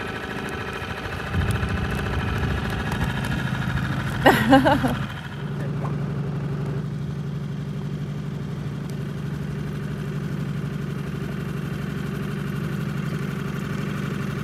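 Yamaha 5 hp four-stroke outboard motor running steadily at low throttle, pushing the inflatable boat along. Its note shifts slightly about five seconds in. A short, loud voice-like burst comes just before that.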